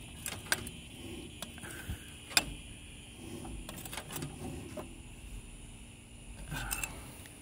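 Scattered sharp metallic clicks and soft clunks, a few seconds apart, from turning over the 1963 Cub Cadet's long-idle engine, which is not seized.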